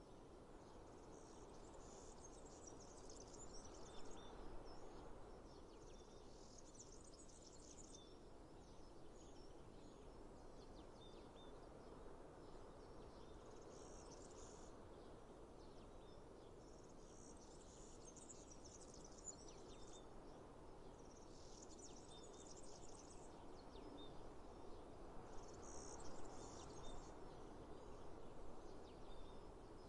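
Faint outdoor mountain nature ambience: a soft steady background hiss, with high chirping calls rising out of it in bursts of a second or two every few seconds and short single chirps scattered between.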